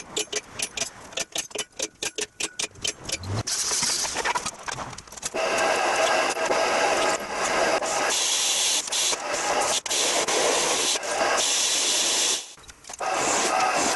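A fast run of sharp clicks for the first few seconds, then a pedestal drill press cutting holes through a metal square pipe: a steady grinding whine from the bit biting into the metal. It stops briefly near the end and starts again.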